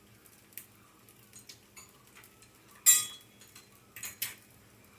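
Egg frying in a lot of hot oil, the oil popping and spitting in scattered sharp pops, the loudest about three seconds in.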